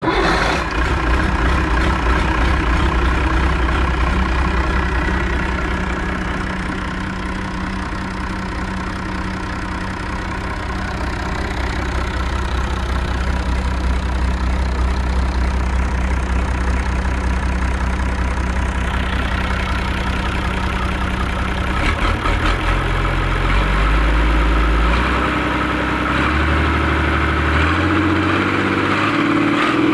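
Perkins M130C 130 hp naturally aspirated six-cylinder marine diesel engine idling steadily, then revved up in steps over the last several seconds.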